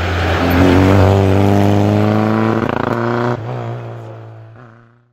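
Small rally car's engine running hard at high revs as it passes on the stage, holding a nearly steady pitch. The level drops suddenly about three and a half seconds in, then the engine sound fades out.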